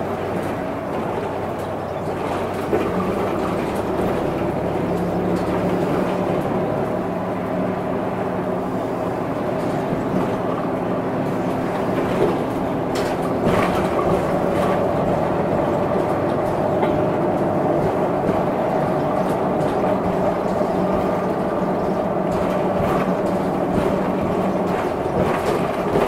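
Hino Blue Ribbon II non-step city bus running, heard from inside the cabin: a steady engine and drivetrain drone whose pitch shifts a few times, with a few knocks and rattles about halfway through.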